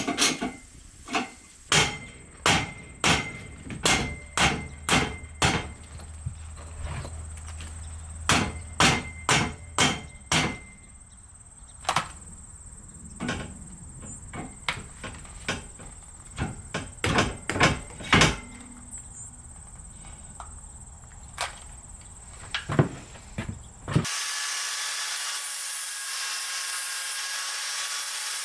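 Hammer blows, struck in runs of about one or two a second with a short metallic ring, then a sudden change near the end to a steady rasping, like sawing or grinding.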